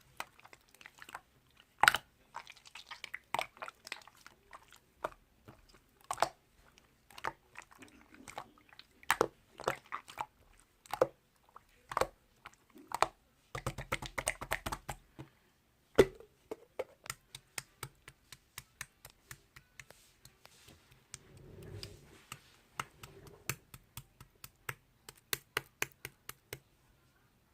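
Slime being squeezed and pressed by hand, making irregular sharp clicks and wet pops, with a denser crackling stretch about halfway through and quicker runs of clicks near the end.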